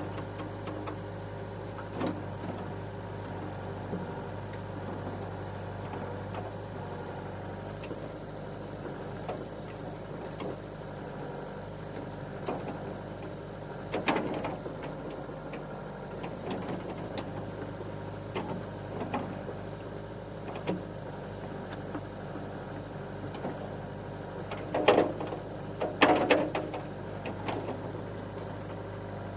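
Compact excavator's diesel engine running steadily, with scattered sharp metallic knocks and clanks from the machine at work, the loudest a cluster near the end.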